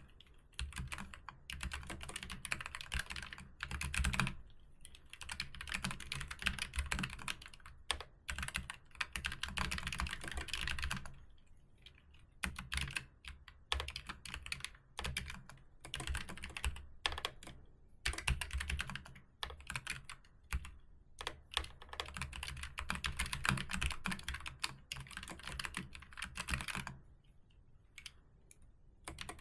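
Typing on a keyboard: fast runs of key clicks broken by short pauses.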